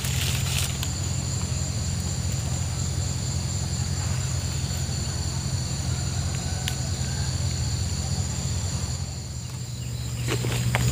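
Steady chirring of insects over a low, steady engine hum, with a few brief rustles near the end.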